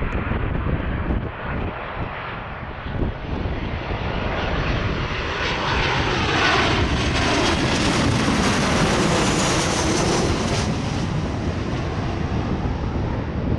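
Ryanair Boeing 737-800 on final approach with gear down, its CFM56 jet engines passing low overhead. The sound swells to a peak in the middle, with a whine that falls steeply in pitch as the plane goes over, then eases off slightly as it moves away.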